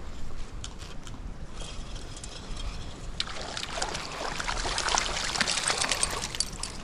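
Stream water splashing and gurgling close to the microphone, swelling from about three seconds in, over a low rumble of wind on the microphone.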